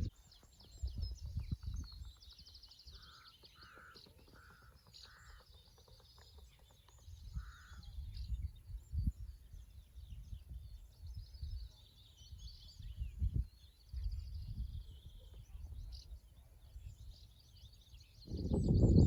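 Wild birds singing with high twittering throughout. A run of four short, lower calls comes about three seconds in, and one more near eight seconds. Wind buffets the microphone now and then with a low rumble.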